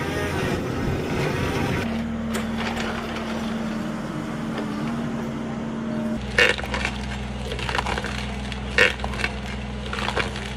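Heavy forestry machine's engine running steadily, with wood cracking sharply twice, about six and a half and nine seconds in.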